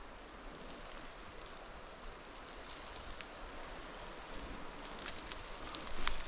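Faint outdoor rustling with scattered light crackles, growing busier and louder toward the end.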